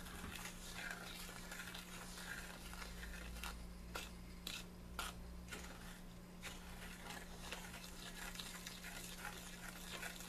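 A wooden spoon stirring and scraping a thick sugar, milk, margarine and cocoa mixture in a stainless steel saucepan, with scattered light knocks of the spoon against the pan. A steady low hum runs underneath.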